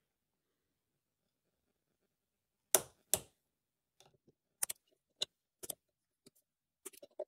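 Click-type torque wrench clicking sharply twice in quick succession about three seconds in, the sign that the bolt has reached its set torque of 8 N·m. Lighter, irregular clicks and taps of the wrench's ratchet and metal tools follow.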